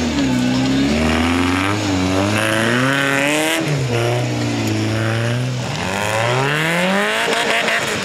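Off-road trial buggy's engine revving hard while climbing over rocks, its pitch rising and falling again and again, with a long rising rev about three-quarters of the way through.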